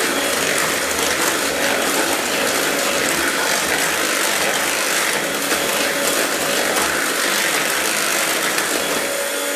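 Electric hand mixer running steadily at an even speed, its twin beaters whirring through a bowl of butter, sugar and egg batter.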